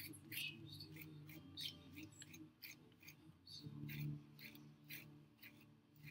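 Thin plastic rib scraped over the surface of a clay pot, a quick, faint scratchy stroke about three times a second.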